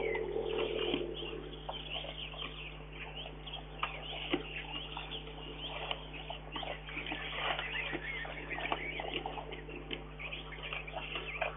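Brown bear eating corn kernels off a rock, making many quick irregular crunching and smacking clicks as it chews. Birds chirp in the background.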